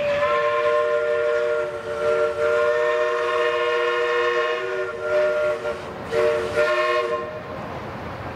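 Steam whistle of a 1906 Bagnall 0-4-0 saddle-tank locomotive sounding several notes at once: one long blast, then a short second blast about six seconds in.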